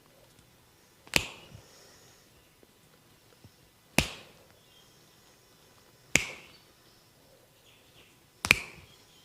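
Four sharp snaps, a couple of seconds apart, each dying away quickly.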